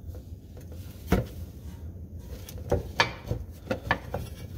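Sharp clinks and knocks of an unbolted underbody bracket and a hand tool being worked loose by hand under a car: one knock about a second in, then a quick cluster of five or six in the last two seconds.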